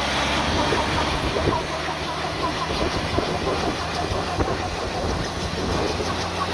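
Homebuilt helicopter's Volkswagen Beetle air-cooled flat-four engine running steadily, with a rhythmic mechanical clatter over a low drone.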